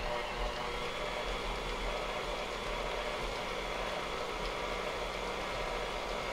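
Tilt-head stand mixer running at a steady speed, its motor giving an even hum as the beater mixes mashed bananas into cake batter.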